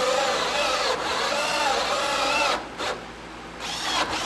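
Electric drill boring a pipe hole through a wooden floor and the 2x4 under it. The motor's pitch sags and recovers under the load, then the drill stops about two and a half seconds in and starts up again about a second later.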